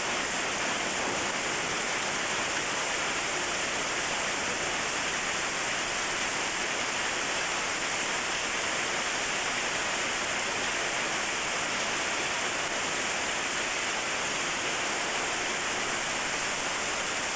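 Heavy hail and rain falling without a break, a dense, steady roar with no separate hits standing out.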